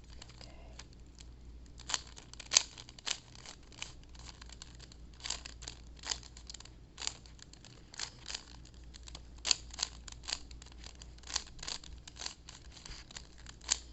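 3x3 Rubik's cube being turned slowly by hand: irregular sharp plastic clicks as the layers snap round, several in quick succession at times, while the white cross is built.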